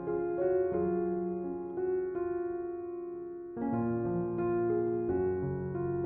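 Slow, gentle piano music: sustained notes and soft chords, fading in the middle before a new chord enters about three and a half seconds in.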